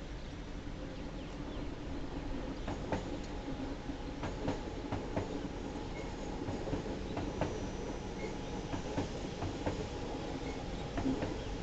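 A Singapore MRT train pulling out of the station over a steady hum, its wheels pounding over the track with sharp knocks that start about three seconds in and come at roughly two a second. The uploader takes the pounding for a track bar out of alignment.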